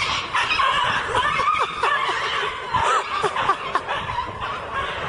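A person laughing in short bursts over background noise.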